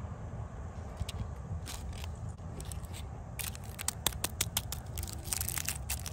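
Cellophane lollipop wrapper crinkling and crackling in the hands: a few scattered clicks at first, then a dense run of crackles from about halfway on, over a low steady rumble.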